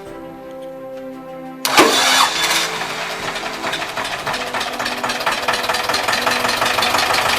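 Background music, then about two seconds in the T-25 tractor's two-cylinder air-cooled diesel starts abruptly and keeps running with a fast, even clatter: a trial start after clutch repair work.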